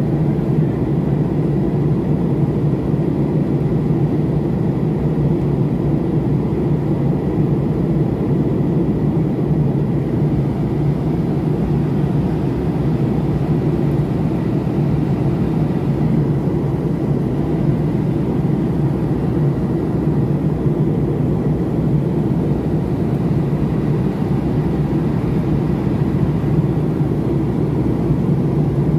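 Steady low drone of engine and airflow noise inside an airliner cabin in flight.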